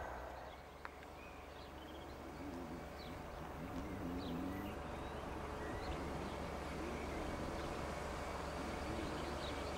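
Small birds chirping, with scattered short high calls, over a faint steady low rumble.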